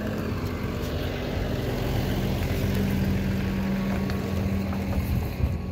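Pickup truck engine idling, a steady low drone.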